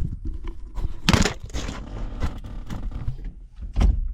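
Metal clicks, knocks and scraping from a steering column's tilt mechanism and shaft as it is tilted and worked back and forth by hand to free it. There is a louder knock about a second in and another near the end.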